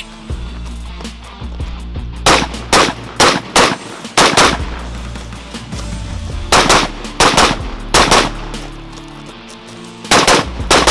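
Semi-automatic rifle fire from a 14.5-inch piston-driven AR-15, shots coming fast in pairs. There are three strings: about six shots starting a couple of seconds in, about six more after a short pause, and a third string beginning near the end.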